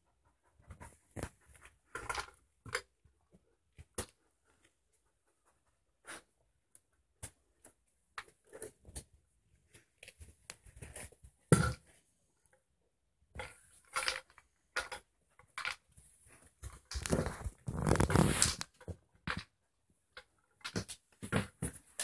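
Irregular knocks and clicks as a dog works at a treat-dispensing ball on the floor. A rustling stretch of about two seconds comes near the end.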